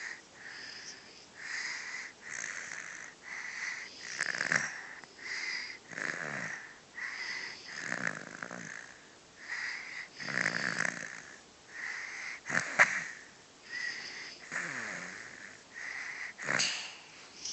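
Snoring in quick, regular breaths, each with a high wheezy whistle, and about every two seconds a louder, rougher breath.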